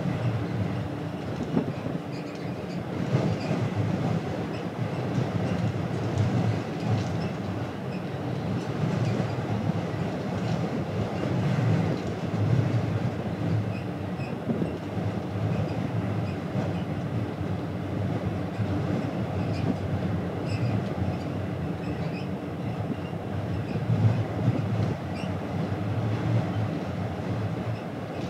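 Steady low rumble heard on the deck of the car ferry Jumbo Ferry Aoi at sea: the drone of its engines and its passage through the water, rising and falling a little in loudness.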